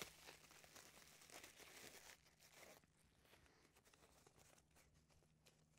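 Faint rustling and crinkling of bubble wrap and plastic packaging being unwrapped by hand, busier in the first two seconds, then thinning to scattered small crackles.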